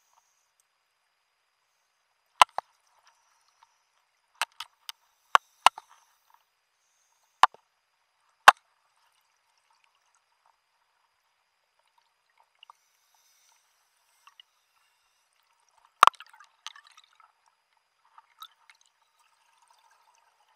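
Scattered sharp clicks and knocks of scuba gear striking hard objects, heard underwater: a cluster of about ten in the first nine seconds, then one stronger knock about sixteen seconds in, followed by faint crackling.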